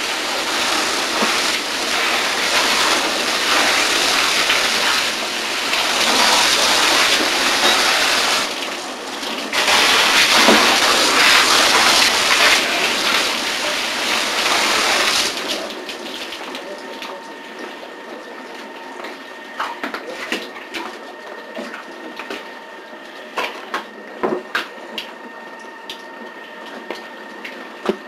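Fire hose nozzle spraying a water jet at the ceiling beams, a loud steady hissing spray that dips briefly about eight and a half seconds in and shuts off about fifteen seconds in. This is damping down after the fire. Afterwards come scattered knocks and clicks.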